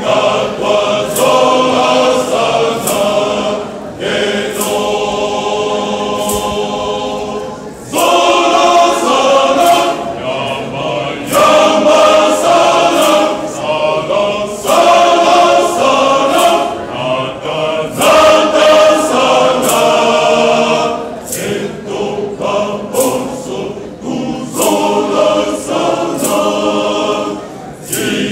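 Male church choir singing together in parts, with sharp clicks keeping a regular beat about once a second.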